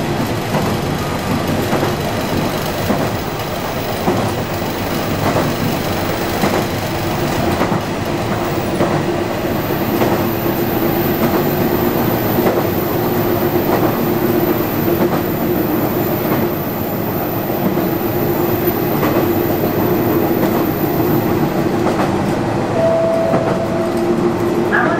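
Single-track local diesel railcar running, heard from the driver's cab: a steady engine and running drone, with the wheels clicking over rail joints every so often. A short higher tone sounds near the end.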